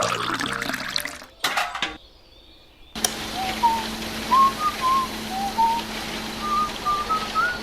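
A string of short, bird-like whistled chirps over a steady hiss and low hum, starting about three seconds in. Before them, a piece of music ends with a falling swoop.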